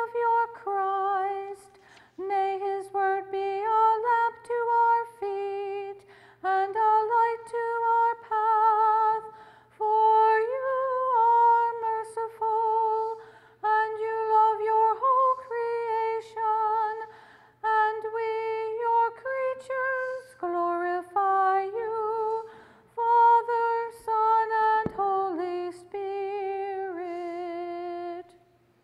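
A woman's solo voice chanting a prayer unaccompanied, in short sung phrases with vibrato. A faint steady low hum lies underneath.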